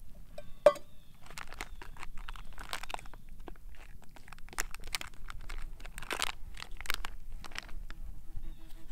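Foil-lined freeze-dried meal pouch crinkling and rustling in the hands as it is pressed closed and worked after hot water goes in. About a second in there is one sharp, short clink from the metal mug being set down.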